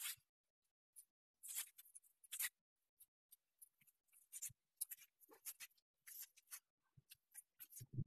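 Near silence, with faint, short scratches and ticks scattered through it.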